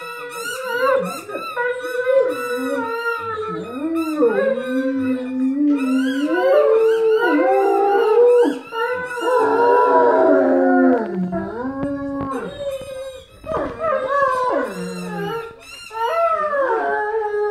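Two Great Danes howling together: long howls that waver up and down in pitch, the two voices often overlapping at different pitches, with a few short breaks for breath.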